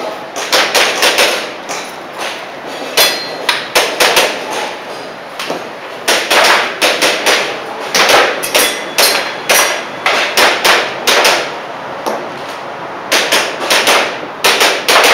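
Airsoft pistol shots fired in quick strings of several shots, with short pauses between strings. Each shot is a sharp crack.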